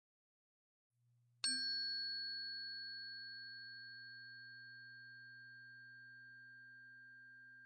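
A tuning fork struck once, about one and a half seconds in, ringing on in a clear pure tone with a faint high overtone and slowly fading. A low steady hum starts just before the strike.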